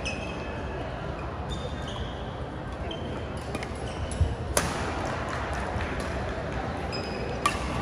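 Badminton rally: sharp smacks of a racket hitting the shuttlecock, the loudest about halfway through and another near the end, with short high shoe squeaks on the court floor and a steady background murmur of voices in a large hall.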